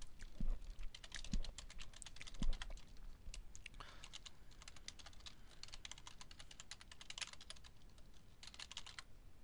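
Typing on a computer keyboard: runs of quick key clicks, sparse at first and denser from about four seconds in, stopping shortly before the end.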